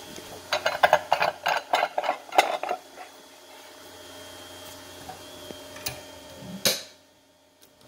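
Microhematocrit centrifuge being readied: a quick run of small clicks and rattles as the knob holding down its rotor cover is screwed tight, then one loud knock near the end as the clear lid is shut.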